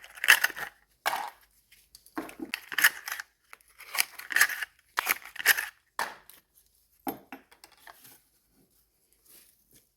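Packaging being torn open and crinkled in several short bursts of rustling and tearing.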